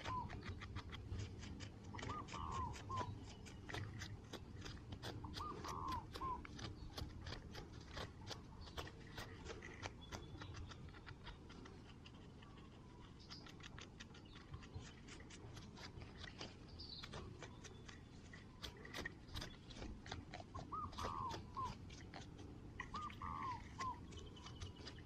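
Fingers scratching and scraping at dry, gritty soil, a dense run of small crackling clicks that thins out in the middle. Short hooked animal calls, in clusters of two or three, come a few times near the start and again near the end.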